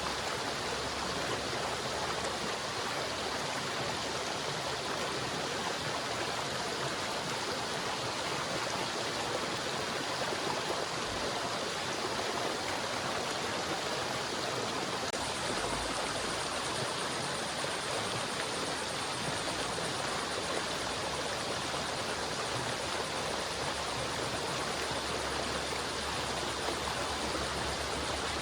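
River water flowing over stones: a steady, even rushing and babbling with no breaks.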